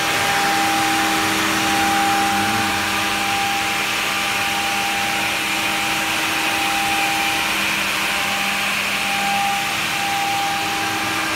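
Automatic edge banding machine running idle: a steady hiss of motors with a constant hum and a higher whine that briefly cuts out a few times.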